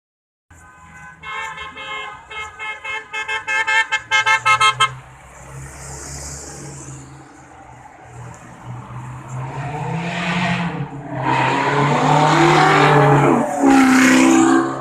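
A car horn honked over and over, the toots coming faster toward a burst of rapid beeps, followed by car engines revving loudly with rising pitch.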